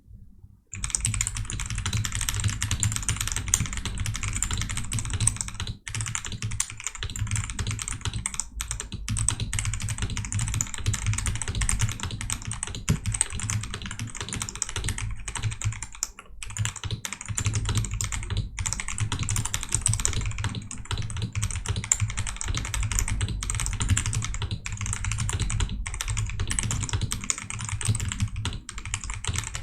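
Fast continuous typing on a 97% mechanical keyboard with Akko CS Crystal linear switches and pudding keycaps: a dense patter of key clacks with only brief pauses, starting just under a second in.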